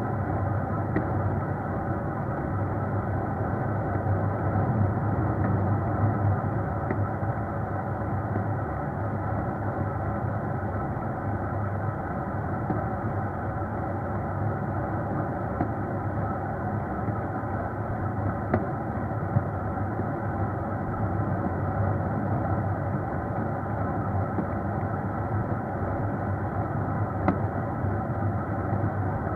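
Steady drone of a moving vehicle's engine and road noise, heard on board, with a few faint ticks.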